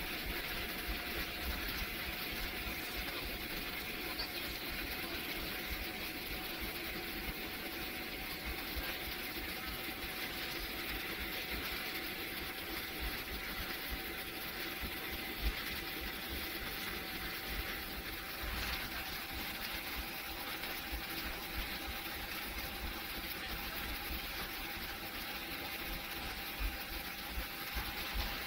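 Airliner cabin noise on the ground before takeoff: the jet engines' steady hum with a constant whine, over an uneven low rumble.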